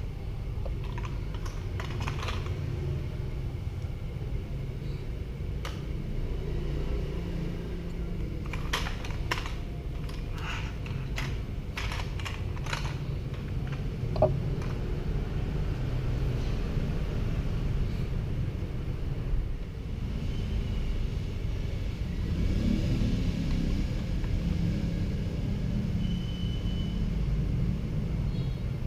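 Clicks and light clatter of plastic RC toy tank parts being handled and taken apart: the hull with its road wheels and the track. A quick run of clicks comes about a third of the way in, over a steady low rumble.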